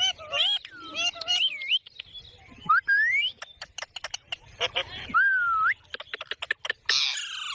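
Indian ringneck parakeet chattering in a high, speech-like mimicking voice, then giving rising whistles, with a run of sharp clicks in between.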